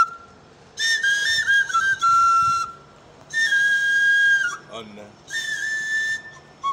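Small handheld wooden flute blown in three short phrases, each a few clear held notes stepping up and down in pitch.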